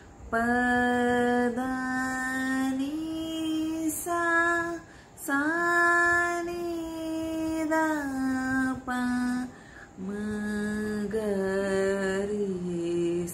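A woman singing the sa-ri-ga-ma scale unaccompanied, in an untrained voice, holding each syllable as a long note: the notes step up in the first half, one is held for over two seconds in the middle, and they step back down towards the end.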